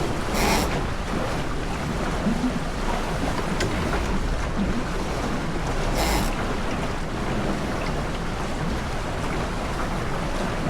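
Wind buffeting the microphone and water rushing along the hull of a small racing sailboat under way. There are two brief hissing splashes, one about half a second in and one about six seconds in.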